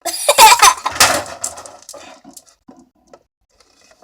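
A person laughing briefly for about the first second and a half, then a few faint small clicks.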